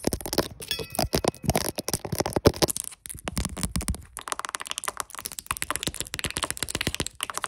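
Close-up ASMR hand sounds: long fingernails clicking and tapping while fingers rub together, a fast, irregular run of crisp clicks and rustles.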